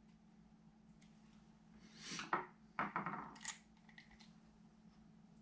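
Handling noise while a spinning reel is reassembled: a short rustle about two seconds in, then a few sharp clicks and knocks as a screwdriver is set down on the countertop and the reel's metal rotor is handled.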